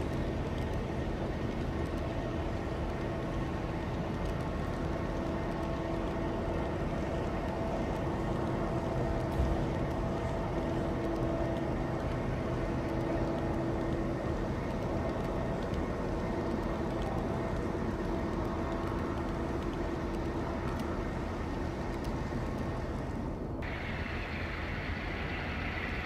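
HO scale model freight train running, a steady rumbling hum with a few low engine-like tones held throughout. About three-quarters of the way through, the sound changes abruptly and more hiss comes in.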